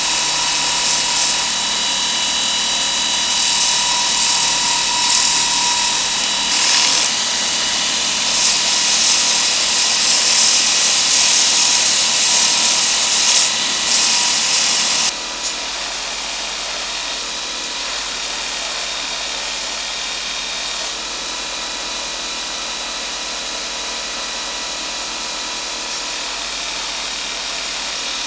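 A power tool running steadily, with a high hiss and a few fixed whining tones. About halfway through the sound changes suddenly and becomes quieter and more even.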